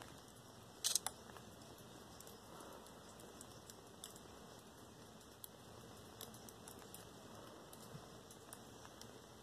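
Faint steady hiss with scattered small ticks, and a brief louder crackle of clicks about a second in.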